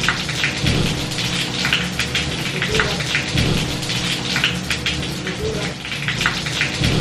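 A dark fizzy soft drink poured from a plastic bottle into a glass, the carbonation fizzing with a dense crackle throughout.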